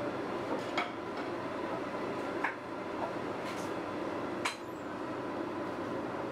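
Sparse light clicks and clinks of utensils against crockery, about half a dozen, the sharpest about four and a half seconds in, over a steady background hum.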